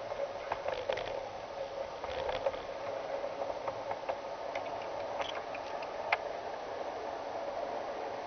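G-scale model train rolling along track, heard from on board: a steady whirring hum with irregular sharp clicks, the loudest about six seconds in.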